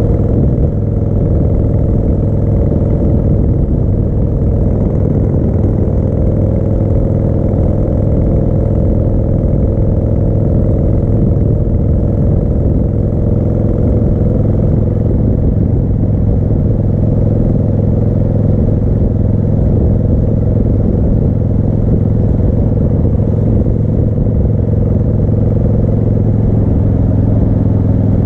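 Harley-Davidson Heritage Softail's 1340 cc Evolution V-twin running at a steady cruise, pulling a sidecar rig along the road; the engine note holds an even pitch.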